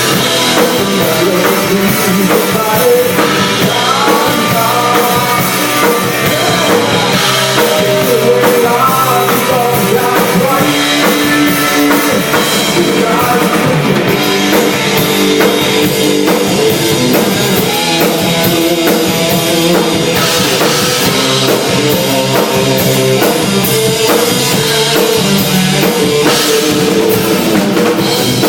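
Rock band playing continuously at a sound check, with drum kit to the fore, along with guitar and singing.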